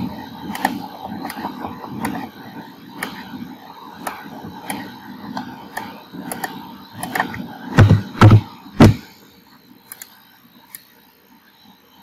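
Computer mouse clicking at irregular intervals while shapes are dragged and resized, over a low rumble of room and handling noise. About eight seconds in come three heavy, deep thumps in quick succession.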